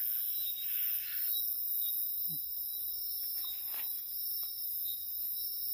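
Night insects, crickets or the like, keep up a steady high-pitched chorus in the forest, with a few faint clicks from camp handling near the middle.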